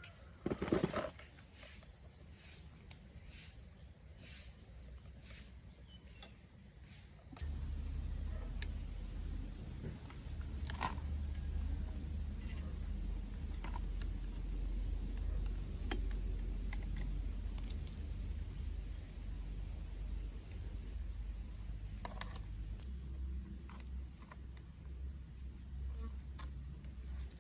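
Crickets trilling steadily as a continuous high note. A short, loud clatter comes about a second in, and from about seven seconds in a steady low rumble joins.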